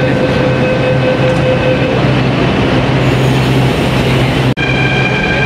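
Delhi Metro train running: a steady rail rumble with several high whining tones from wheels and motors. There is a momentary break about four and a half seconds in, after which the whine sits higher and stronger.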